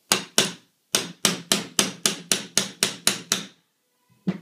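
Small hammer tapping a 1/8-inch punch, metal on metal, driving the roll pin through a Magpul MOE trigger guard. There are two taps, then a steady run of about ten at roughly four a second, then one last tap near the end.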